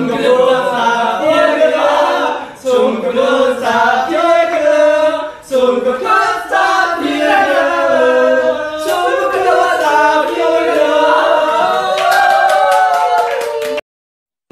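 A group of young men singing together unaccompanied, several voices at once; the singing cuts off abruptly near the end.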